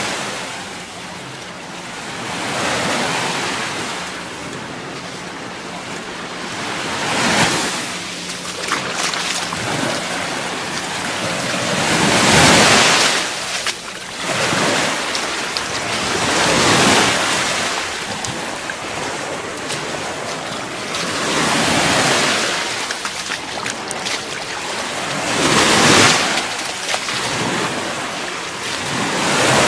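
Gulf of Mexico waves breaking and washing up the sand, a swell of surf every four or five seconds, with some wind on the microphone.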